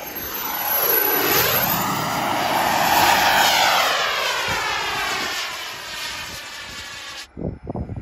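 Large radio-controlled jet's turbine engine running at speed in a low flyby: a loud whine and rush that swell as it approaches, drop in pitch as it passes, then fade away. The sound cuts off abruptly near the end.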